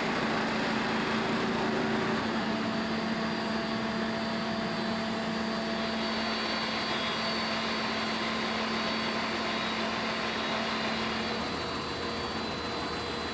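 Steady running of fire-service engines: a continuous machine drone with a steady hum, easing slightly near the end.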